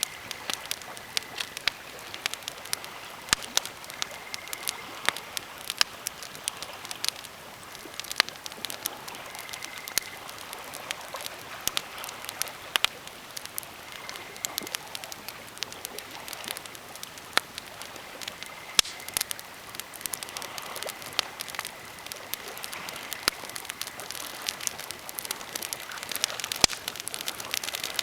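Birch and pine campfire crackling, with many sharp, irregular pops over a steady hiss.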